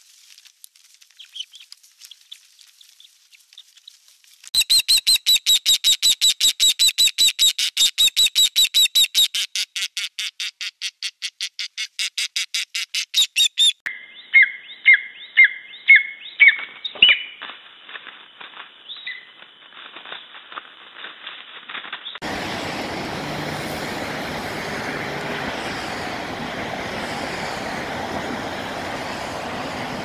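Raptor calls: first an osprey's rapid run of high, sharp chirps, several a second, then an eagle at its nest giving a slower series of lower, falling yelps. After that a steady, even hiss.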